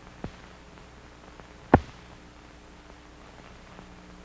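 Old film soundtrack between narration lines: a low steady hum and faint hiss, with two clicks about a second and a half apart, the second louder and sharper.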